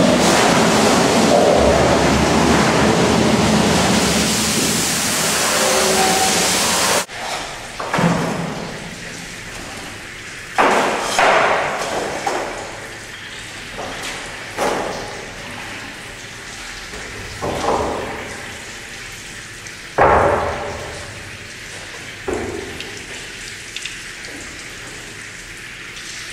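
A loud, steady rushing noise cuts off abruptly about seven seconds in. After it, metal cheese moulds clank as they are handled and set down, a sharp knock every couple of seconds, each ringing out in a tiled room.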